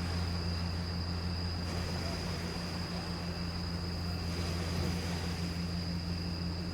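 A steady low mechanical hum, like an engine or machinery running, with a thin high whine above it and a soft hiss underneath.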